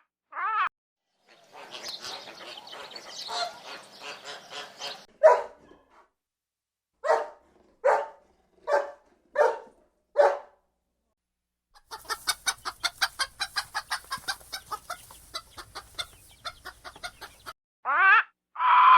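Chickens clucking, with a series of separate calls and then a quick run of cackling calls at about five a second in the second half.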